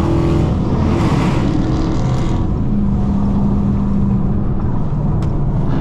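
Dodge Charger R/T's V8 engine and exhaust droning at highway speed, with road noise. The engine note climbs just before, then holds steady through the middle.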